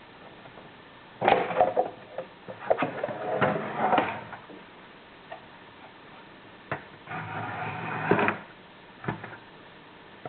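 Irregular clattering and knocking of hard objects being handled, in several short spells with single knocks between them.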